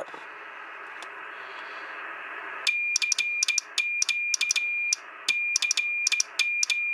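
Hand-keyed Morse code: a single high steady tone switched on and off in dots and dashes, with a click at each start and stop. A steady hiss fills the first two and a half seconds before the keying begins.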